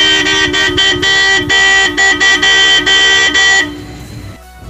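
Pair of newly fitted Roots Megasonic electric car horns honking in a quick run of short and longer blasts, two close pitches sounding together, stopping about three and a half seconds in.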